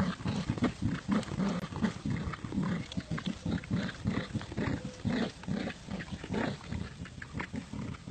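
Dogs growling in quick, repeated short bursts while tugging on a toy: play growling in a tug-of-war game, not aggression.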